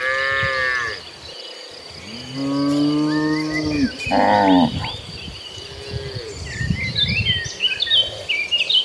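Cattle mooing: a moo trails off at the start, then comes a long low moo and right after it a shorter, higher one. A faint moo follows a couple of seconds later.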